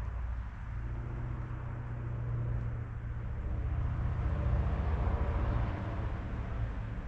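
A motor vehicle running with a steady low engine rumble and road noise, which swells a little about four to six seconds in.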